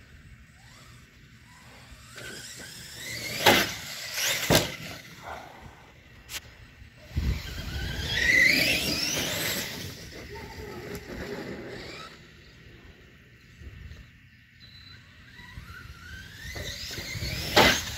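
Electric RC basher truck on big tires, its motor whining up in pitch as it accelerates in several bursts, the longest and loudest about halfway through and another near the end. Two loud sharp knocks come about three and a half and four and a half seconds in.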